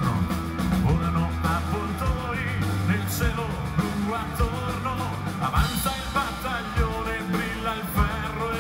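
Live rock band playing: electric guitar, bass, drums and keyboards, with a lead singer's vocals over a steady drum beat.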